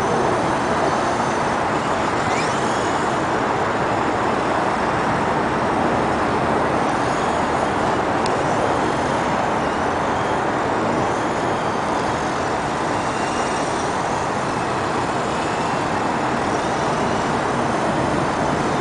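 Strong wind rushing steadily over the microphone, with the faint whine of a fixed-pitch mini electric RC helicopter's motor gliding up and down as the throttle changes.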